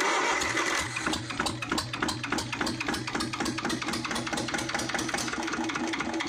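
Lister ST2 two-cylinder air-cooled diesel engine running with a rapid, even clatter. It is firing on one cylinder only, because the other cylinder's injector line is cracked open for bleeding.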